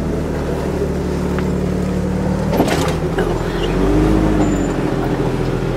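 Off-road Jeep engine running steadily. A knock comes about two and a half seconds in, and the engine note swells and falls about a second later.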